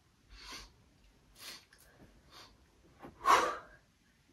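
A person's breathing in the breath-of-joy yoga exercise: three short inhales about a second apart, then one loud, forceful exhale.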